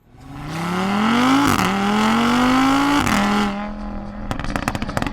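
Mercedes-AMG GLC 63 S's twin-turbo V8 accelerating hard through two upshifts, its pitch climbing and dropping sharply at each shift. It then settles and lifts off, firing a rapid string of exhaust pops and crackles about four seconds in.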